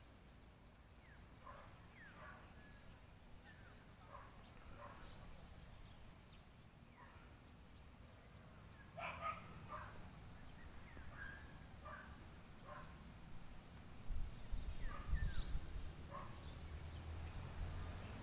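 Faint dogs barking now and then, a dozen or so short separate barks. A low rumble joins in during the last few seconds.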